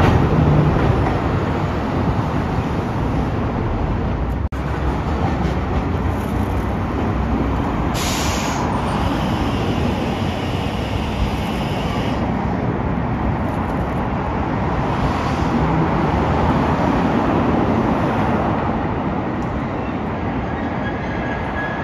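A streetcar running on the tracks below amid steady city road traffic, a continuous rush of tyres and motors. About eight seconds in a brighter hiss rises over it for a few seconds.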